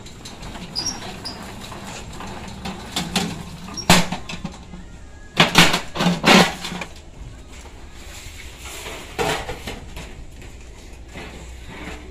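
Thin metal jacketing sheet rattling and clanking as it is rolled into a cylinder on a manual slip-roll machine and handled, with a sharp clack about four seconds in and a cluster of loud rattles around the middle.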